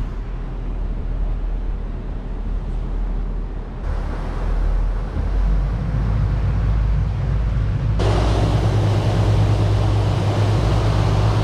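Princess F70 motor yacht under way, its twin engines running with a steady low drone under a rushing of air and water. About eight seconds in the sound changes suddenly to a louder rush of churning wake over a stronger engine drone.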